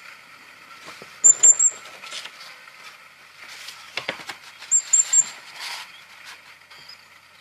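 Recorded song of a common firecrest played back: short runs of three or four very high, thin notes, about a second in and again near the five-second mark, with a light knock about four seconds in.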